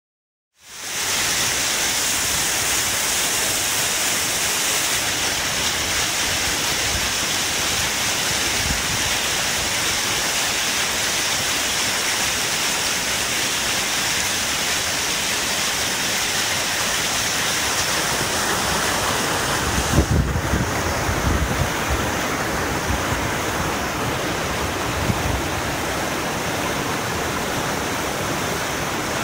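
Whitewater rapid rushing over rock ledges: a steady, loud rush of water that fades in over the first second. About twenty seconds in the sound shifts, with a few low bumps.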